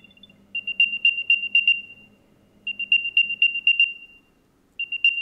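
An unmodified Apple AirTag's built-in speaker playing its Find My locate sound: repeated runs of quick high-pitched chirps, each run fading away before a short pause and the next run.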